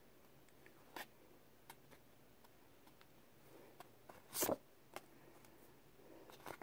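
Pokémon trading cards handled in the hand: a few faint, short rustles and flicks as one card is slid off and the next brought forward. The loudest is about four and a half seconds in.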